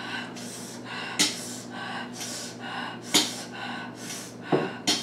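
A person breathing hard through the mouth, sucking air in and blowing it out in hissing breaths about twice a second, a few of them sharper and louder: the panting of someone whose mouth is burning from hot spicy food.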